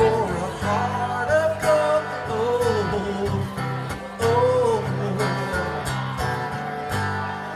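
Music: acoustic guitar strumming steadily, with a gliding melody line above it.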